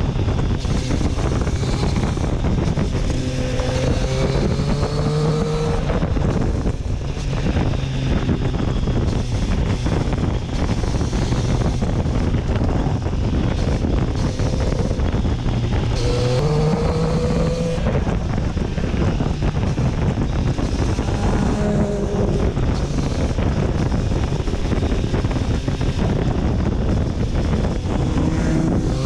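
Triumph Street Triple's three-cylinder engine pulling through the gears on the road, its note rising several times as it accelerates, under heavy wind noise on the rider's microphone.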